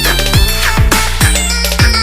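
Electronic background music with a steady kick-drum beat, about two to three beats a second, under synth melody lines.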